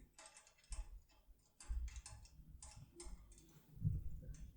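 Light metallic clicks of a lock-decoding tool's hook and handle being pressed and worked against the levers inside a SECUREMME 4x4 lever lock, a dozen or so irregular clicks with a couple of soft handling knocks, as each lever is pressed and felt for while the lock is picked.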